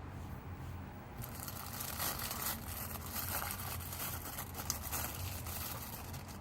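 Packaging being handled and unpacked: paper and plastic rustling and crinkling with small scrapes and clicks, starting about a second in and going on unevenly.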